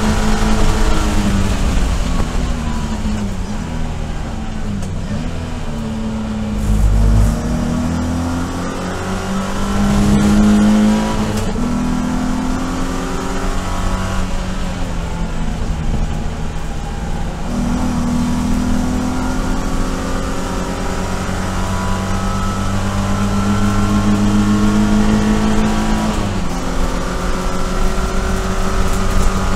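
BMW E46 race car's 3.0-litre straight-six engine heard from inside the cockpit at racing speed. The engine note falls under braking and downshifting for the first few seconds, then rises again through the gears, with another short fall and rise near the end. There is a low thump about seven seconds in.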